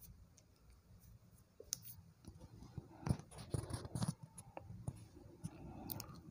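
Scattered light clicks and scrapes of kitchen utensils and cookware being handled, starting about a second and a half in after a near-silent moment.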